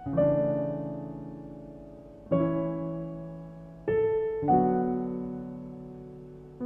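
Slow, gentle piano music: chords struck a few times, each left to ring and slowly fade.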